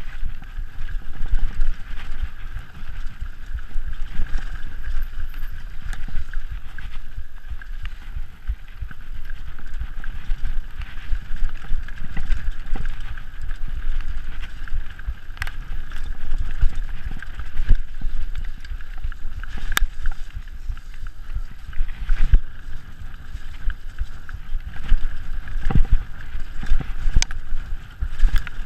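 Mountain bike descending a rough dirt trail at speed: tyres on loose dirt, the chain and frame rattling, and frequent sharp knocks as the bike hits bumps, over a constant low rumble.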